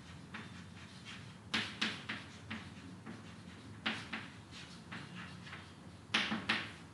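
Chalk tapping and scraping on a chalkboard as words are written by hand: a string of short, irregular strokes and taps, the sharpest about a second and a half in and again near the end.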